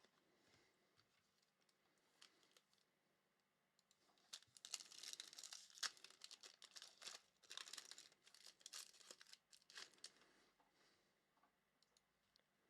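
Foil wrapper of a Topps baseball card pack being torn open and crumpled, mostly between about four and ten seconds in.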